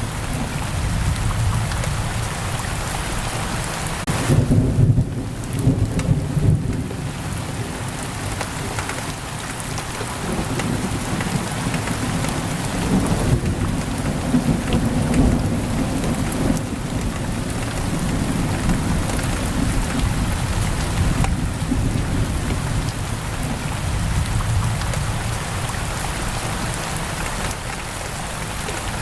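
Heavy rain pouring steadily against a window, with a low rolling rumble of thunder about four to seven seconds in and fainter rumbles later.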